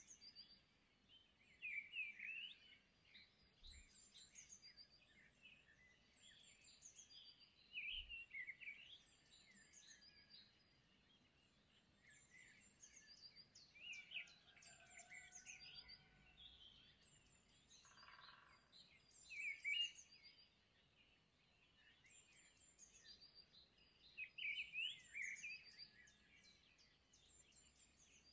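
Faint birds chirping and trilling, many short calls over a light background hiss.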